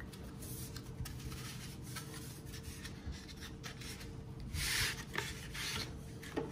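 Cardboard packaging and the paper wrap of a UV sterilizer bulb being handled and slid apart: soft rubbing and rustling of paper on cardboard, with a louder scrape about four and a half seconds in.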